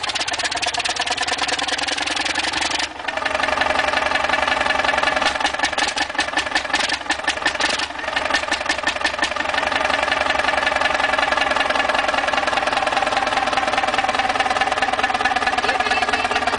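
Huge vintage multi-cylinder stationary engine with a large flywheel running steadily, its exhaust beating in rapid, even pulses.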